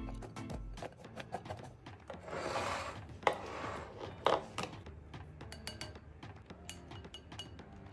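Flour-coated potato wedges rustling as they are tossed in a glass bowl, then a small ceramic bowl set down on a wooden tray with two sharp knocks, followed by light clinks of a spoon.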